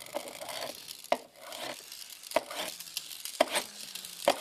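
Pikachu Happy Meal toy being revved by hand, its hard rubber rear wheels spun again and again to drive the spark gimmick: a sharp stroke about once a second, each followed by a rasping whirr that fades as the wheels spin down. The mechanism is stiff and is being broken in, barely sparking yet.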